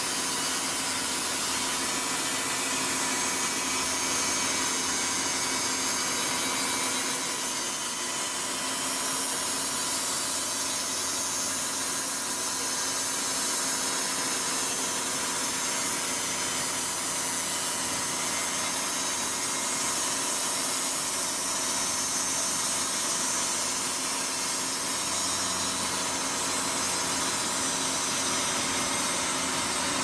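Engine-driven portable band sawmill cutting lengthwise through a very large log, the engine running steadily under load and the blade sawing continuously through the wood.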